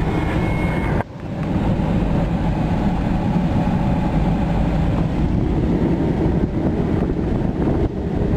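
Car driving: steady road and engine noise from inside the cabin, with a sudden brief drop in level about a second in.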